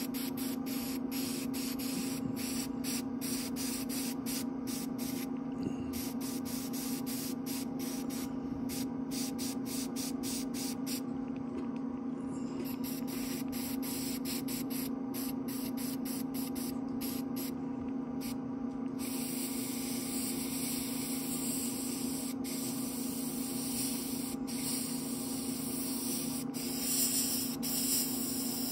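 Gravity-feed airbrush hissing as paint is sprayed in fine detail passes. For roughly the first two-thirds the hiss is broken by many brief gaps as the trigger is feathered, then it runs steadily, over a steady low hum.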